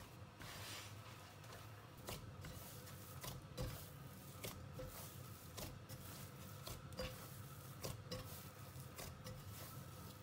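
Hands kneading a soft biscuit dough in a glass bowl: faint squishing and pressing, with irregular light taps of fingers and dough against the glass.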